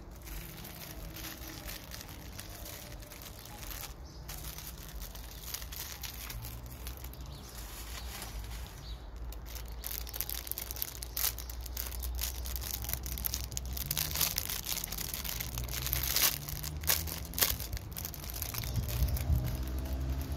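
Clear plastic bubble-wrap pouch crinkling and crackling as it is handled and opened by hand. The crackles grow denser and louder in the second half, with a few sharp crackles near the end.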